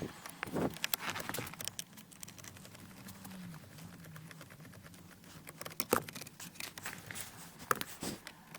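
Small clicks, ticks and rustling of hand work on plastic car interior trim: a screwdriver taking screws out of a lower dash cover. Sharp clicks come about half a second in, around a second in, near six seconds and near the end.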